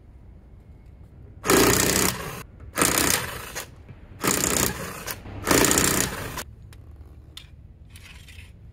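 Power impact wrench run in four bursts of about a second each, driving the wheel bolts during a tyre change.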